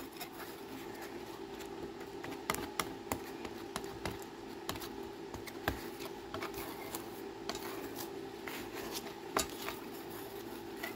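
Metal putty knife scraping and tapping on a sheet-metal mixing board as it folds two-part panel adhesive together, giving scattered short clicks and scrapes over a steady background hum.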